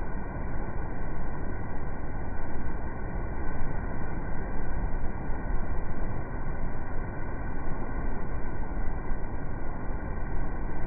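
Steady rushing, rumbling noise of a coastal ship's wake churning astern, slowed down with the slow-motion footage so it sounds deep and dull, with nothing in the upper range.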